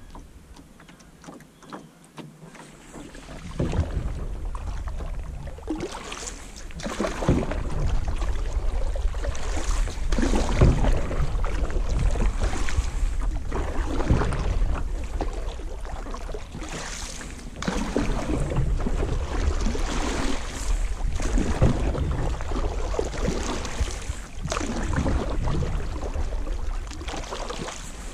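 Canoe paddle strokes: water splashing and swishing with each stroke, every second or two, over a steady low wind rumble on the microphone. The first few seconds are quieter, before the strokes begin.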